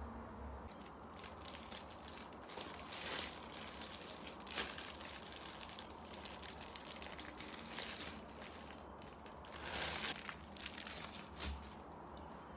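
Clear plastic snack wrapper crinkling and rustling as it is handled and opened, in irregular bursts, the longest about ten seconds in.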